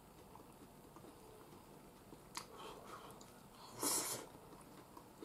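A person eating curry udon with chopsticks: quiet chewing and small mouth clicks, then about four seconds in a short, loud slurp of noodles.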